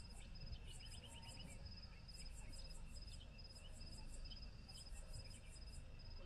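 Faint chorus of calling insects, crickets by their sound: high chirps in quick runs of five or six repeating about once a second, over a steady, regular pulsing trill.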